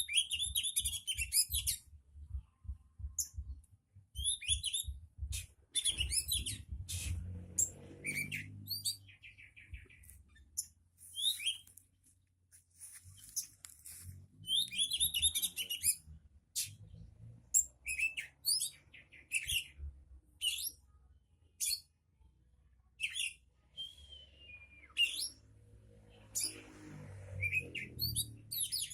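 A songbird singing in short, sharp, repeated chirping phrases, with a brief lull about ten seconds in. A low droning sound swells and fades twice in the background.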